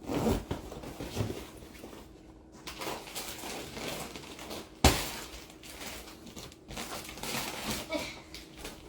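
Plastic bags rustling and crinkling as vacuum-sealed bundles of plushies are handled and pushed into another bag, with one sharp knock about five seconds in.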